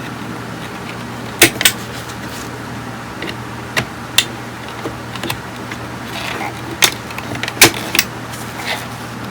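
Tools and small hard parts handled on a workbench: irregular sharp clicks and clacks, a few at a time, over a steady low hum.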